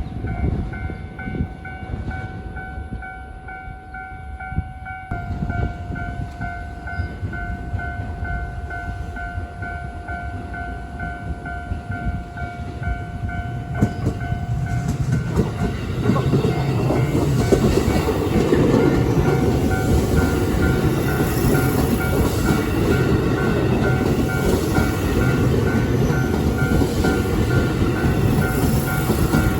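A Japanese level crossing's electronic warning bell rings in a steady repeating ding. About halfway through, a JR West limited express Haruka train comes through the crossing, and the rumble and clatter of its wheels rise and stay loud over the bell.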